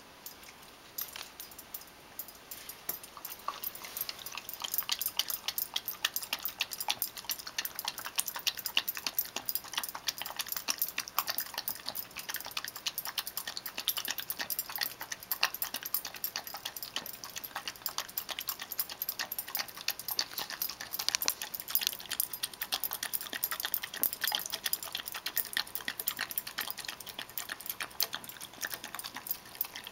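Shiba Inu wolfing down wet, rehydrated dog food from a stainless steel bowl: rapid wet lapping and smacking, with many quick clicks of tongue and teeth against the bowl each second. Quiet at first, it gets louder about four seconds in.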